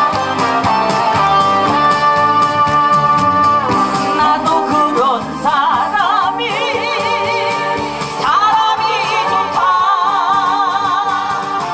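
A woman singing a Korean trot song into a microphone over a loud backing track, amplified through stage speakers. There is a steady beat, and long notes are held with a wavering vibrato in the second half.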